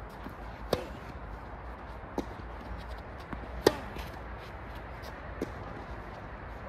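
Tennis rally: sharp pops of rackets striking the ball, about one every second and a half, the loudest about halfway through, with fainter taps of ball bounces and footwork in between.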